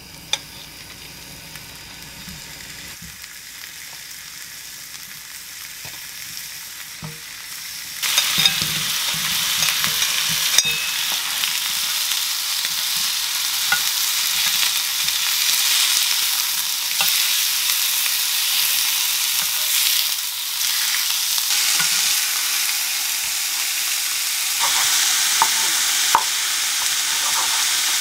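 Beef chuck flap steak frying in a ribbed grill pan, later with sliced mushrooms and onion alongside: a faint sizzle at first that turns suddenly much louder about eight seconds in and goes on steadily, with a few sharp clicks.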